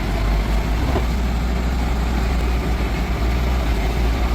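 Heavy equipment engine running steadily, with a deep low-pitched drone.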